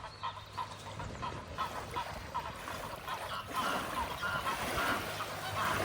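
Several geese on the water honking and calling in quick, overlapping short calls, growing busier and louder toward the end.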